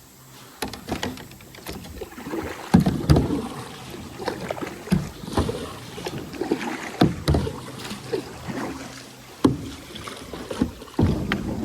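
Kayak being paddled: irregular splashing strokes in the water, with sharp knocks of the paddle or gear against the hull.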